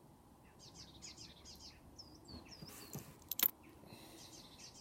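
Small birds chirping and trilling in the background, with a quick pair of sharp clicks about three and a half seconds in.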